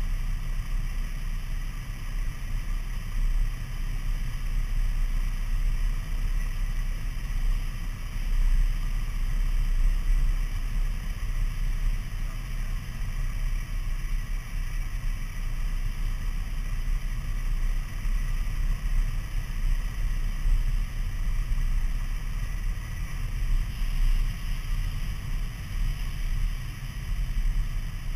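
Steady drone of a light single-engine piston airplane's engine and propeller, heard inside the cabin with rushing air, as the plane descends on approach to land.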